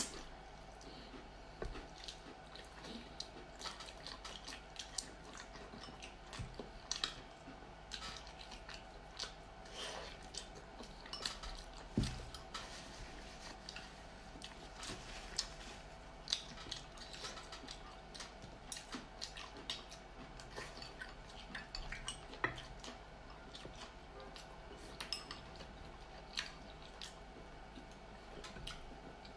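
Eating at a table: scattered short clicks and taps of chopsticks against porcelain bowls and plates, mixed with the chewing and mouth sounds of people eating, over a faint steady hum. One louder knock comes about twelve seconds in.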